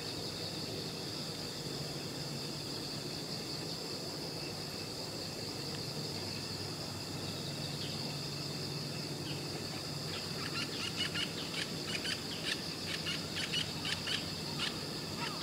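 Steady high-pitched insect chorus, crickets chirring without pause. From about two-thirds of the way in, a run of short, quick bird chirps joins it.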